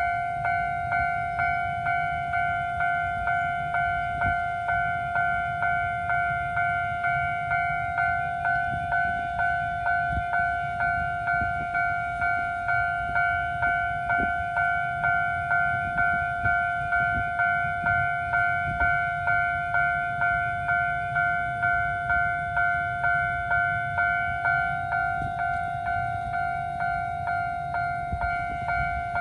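Railroad level-crossing warning bell ringing in a steady, even two-tone ding about twice a second. It signals that a train is approaching the crossing.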